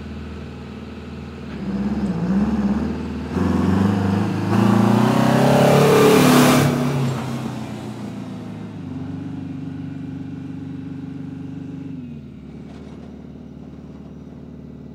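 Farm tractor engine revving up and pulling away, loudest about six seconds in, then running steadily before dropping to a lower level about twelve seconds in.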